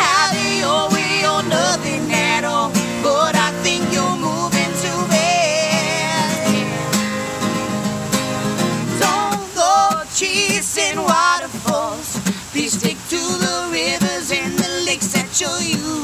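A man and a woman singing together over instrumental accompaniment. The low accompaniment drops out about nine seconds in, and the voices carry on alone.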